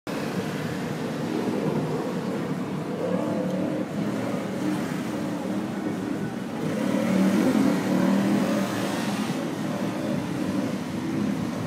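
Racing speedboat engines running hard, a steady pitched drone that grows louder for a couple of seconds past the middle.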